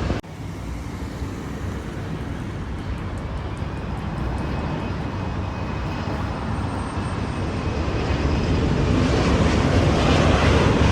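Jet airliner on approach to land, its engine noise a steady rush that grows gradually louder, with a faint high whine in the middle.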